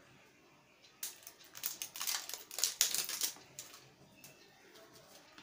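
Small plastic spice bottles being handled and opened, making a quick, irregular run of sharp clicks and rattles from about a second in, fading to a few lighter clicks near the end.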